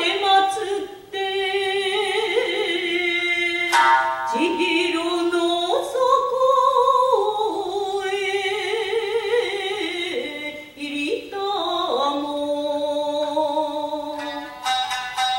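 Satsuma biwa recital: a woman's voice singing long, wavering held notes that step up and down, with sharp plucked strikes of the biwa's strings now and then, one about four seconds in and a cluster near the end.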